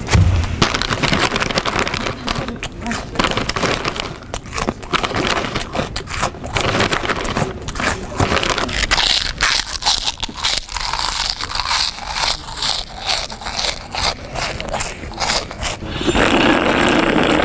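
Loud crunching of potato chips and crinkling of the chip bag as they are eaten noisily, with many short crackles. Near the end there is a louder, drawn-out sound of about two seconds as a man drinks from a can.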